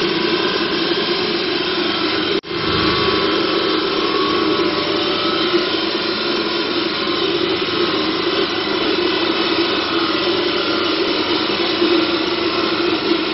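Steady, loud blowing machine noise in a chassis-dyno cell, a continuous roar that does not rise in pitch. It drops out for an instant about two and a half seconds in.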